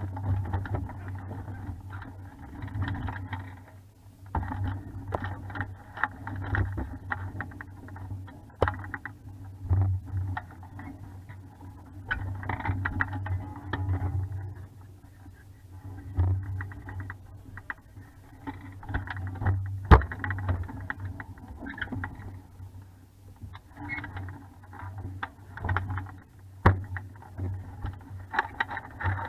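Muffled, surging wind and water noise on a camera mounted on a 420 sailing dinghy under way, with a few sharp knocks from the boat, the loudest about two-thirds of the way through.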